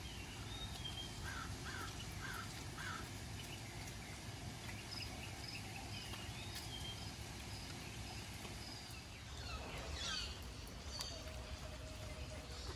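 Outdoor ambience with several birds calling: short chirps and whistled notes throughout, and a louder sweeping call about ten seconds in, over a steady low rumble.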